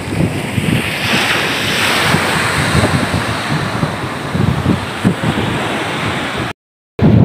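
Small waves breaking and washing up a pebble shore, with a louder surge of surf about a second in. Wind buffets the microphone throughout. The sound cuts out for about half a second near the end.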